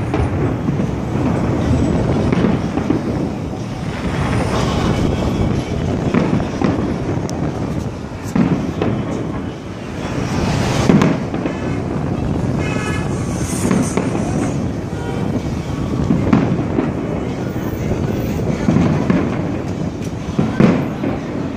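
Aerial fireworks show: shells bursting overhead in a continuous run of booms and crackles, with the loudest bang about eleven seconds in.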